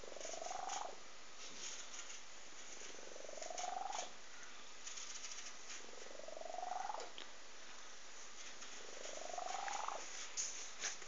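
A cat snoring: each breath gives a whistling tone that rises in pitch. It comes four times, about every three seconds.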